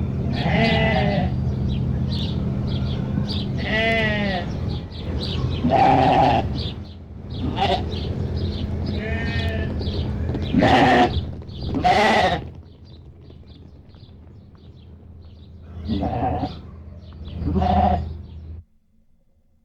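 A flock of sheep bleating, with repeated calls from several animals over a steady low hum. The sound cuts off suddenly near the end.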